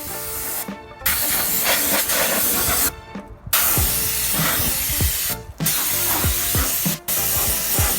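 Background music: a beat with repeated falling bass notes under a dense, steady hiss, cutting out briefly a few times.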